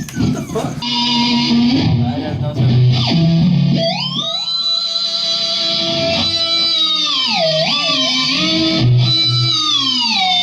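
Electric guitar played through effects: a few picked notes, then about four seconds in a note slides up and is held with long sustain, bends down and back twice, and slides down near the end.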